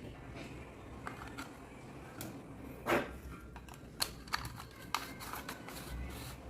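Scattered light clicks and knocks of objects being handled, with one louder brief rustling thump about three seconds in.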